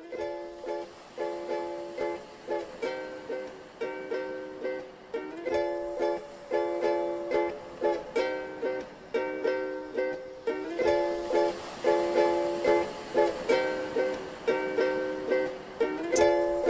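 Background music: chords on a plucked string instrument repeating in a steady rhythm.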